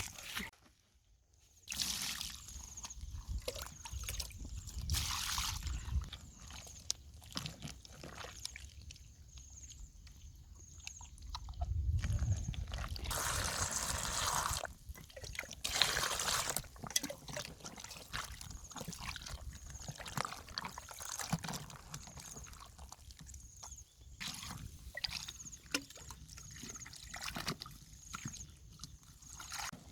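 Water being poured, trickling and sloshing, with louder splashing a little before halfway through and again shortly after. A faint steady high tone runs underneath.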